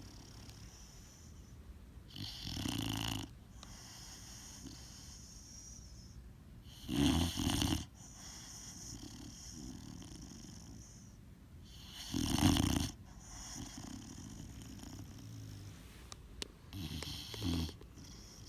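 A sleeping pet snoring: four loud snores about every four to five seconds, each lasting about a second, with softer breathing in between.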